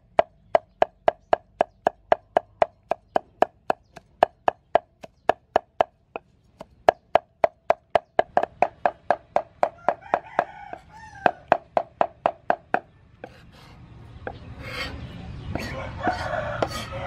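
Chinese cleaver chopping soaked dried red peppers on a round wooden chopping block: sharp knocks at a little over two a second, each with a short ring of the blade, pausing briefly about six seconds in. A rooster crows in the background about ten seconds in, and near the end the knocks turn louder and irregular over a rising background noise.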